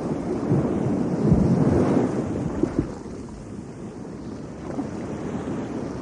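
Wind buffeting the microphone: a low, uneven rumble that swells about a second in and eases off about three seconds in.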